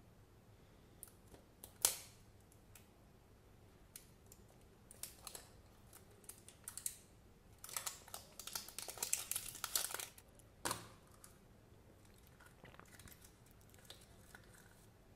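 Crinkling and tearing of the printed wrapping being peeled off a plastic surprise-egg capsule by hand, sparse at first and densest a little past halfway. Then a single sharp click, followed by faint handling noise.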